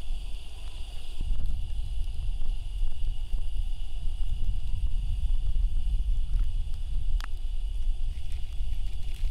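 Wind buffeting the microphone in an uneven low rumble, over a faint steady high tone, with one sharp click about seven seconds in.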